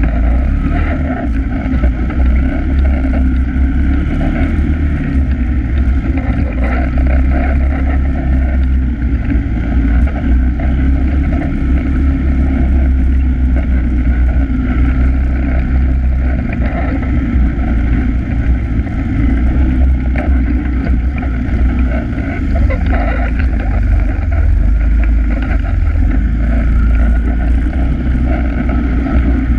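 ATV engine running steadily under way on a dirt trail, heard close up from a camera mounted on the quad itself.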